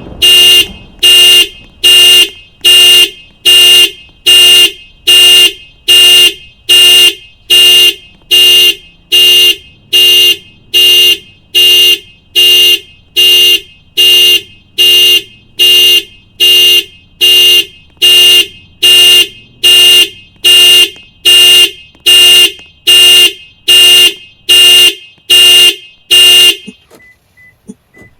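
2022 Toyota RAV4 Limited's horn blaring in its panic alarm pattern: evenly spaced honks, a little more than one a second, which stop shortly before the end.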